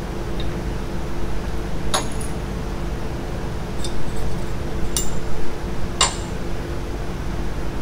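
Metal tooling and parts clinking on a valve seat machine: four sharp, ringing metallic clinks about a second apart, over a steady machine hum.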